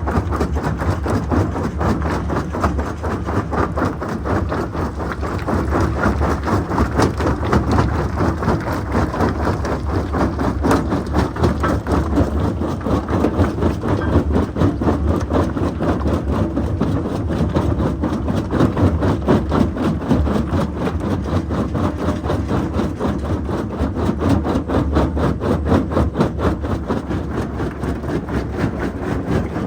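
Mobile jaw crusher plant running steadily: heavy diesel machinery with a dense, constant rattle, and no pause or change.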